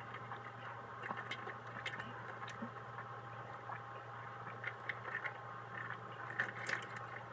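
A person gulping water from a glass, with faint, scattered swallowing and mouth clicks over a low steady hum.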